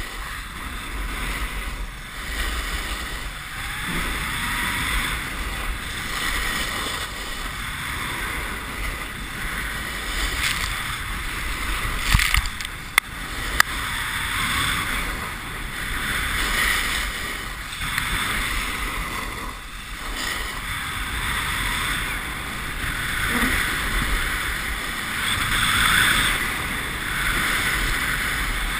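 Snowboard sliding and scraping over groomed snow, the hiss swelling and fading every couple of seconds as the board turns, with wind buffeting the camera's microphone. Two sharp clicks about halfway through.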